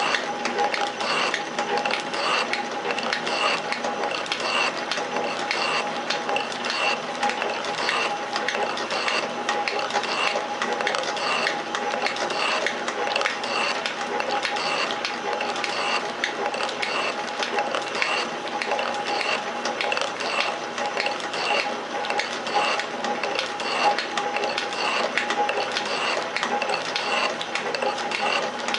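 Metal shaper running under power, its ram stroking back and forth as the tool takes cuts in a metal workpiece. A regular click comes on about every two-thirds of a second, over a steady whine from the machine.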